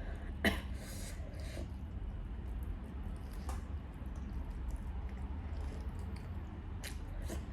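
Close-up eating sounds: scattered wet mouth clicks and chewing noises, the sharpest about half a second in, over a steady low hum.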